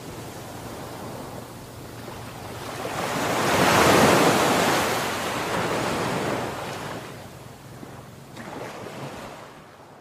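Ocean surf: a wave rushes in and breaks, swelling to its loudest about four seconds in, then a smaller wave near the end before the sound dies away.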